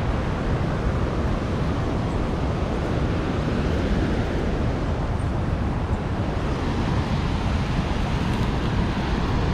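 Fast floodwater rushing down a swollen creek: a loud, steady rush of water with a heavy low rumble, unchanging throughout.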